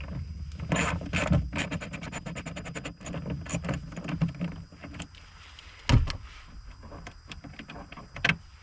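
Socket ratchet clicking in quick runs while loosening the 8mm fastener on the taillight access bracket, among scattered clicks and knocks of tools and plastic trim. A louder knock comes about six seconds in.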